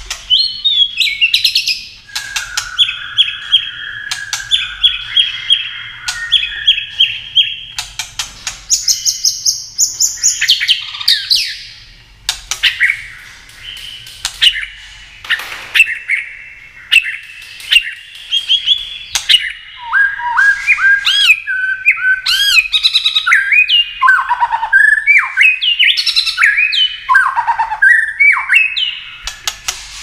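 Male white-rumped shama singing a long, varied song of loud whistled phrases, some held on one pitch and others sliding up and down, broken by frequent sharp clicks.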